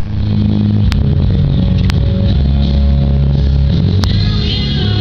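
Background rock music: guitar over sustained low bass notes, with a few sharp hits.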